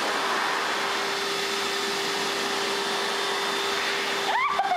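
Wall-mounted electric hand dryer blowing steadily, a rush of air with a steady motor hum under it, used here to dry hair. A voice comes in near the end.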